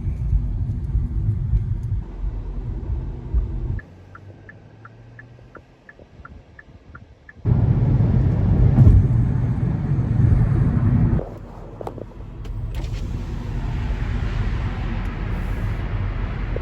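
Car road rumble and engine noise, broken by abrupt cuts. In a quieter stretch about four seconds in, a steady series of short electronic pips sounds, two or three a second.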